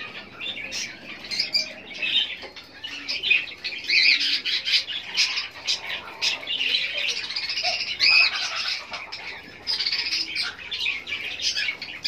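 Lovebirds chattering: a near-continuous run of short, high, overlapping chirps and squeaks.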